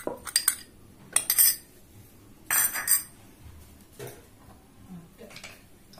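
A metal spoon scraping and knocking against a glass bowl as flour is tipped out of it into a steel dish: three loud clattering bursts in the first three seconds, then a couple of fainter clinks.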